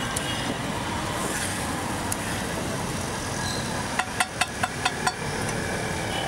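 Steady street traffic noise, with a quick run of about six sharp taps roughly four seconds in, five or so a second, from work at the food stall.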